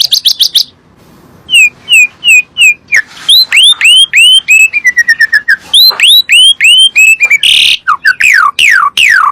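Javan pied starling (jalak suren) singing a varied run of loud whistled notes. There is a quick clatter of short notes at the start, then slurred notes that fall and rise and a quick string of short notes, a short harsh note about three-quarters through, and long falling whistles near the end.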